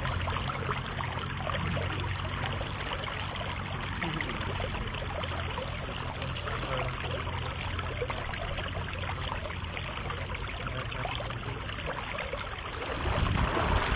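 Steady rush of flowing river water, growing briefly louder near the end.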